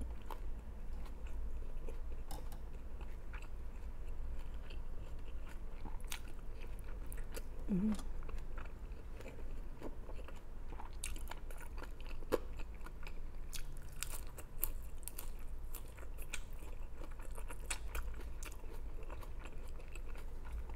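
Close-up mouth sounds of a person eating, with irregular chewing, small wet clicks and light crunches.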